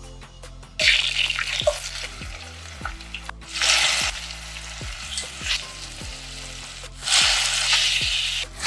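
Food sizzling as it fries in a pan while being stirred. The sizzle swells loudly about a second in, again around three and a half seconds, and once more near the end.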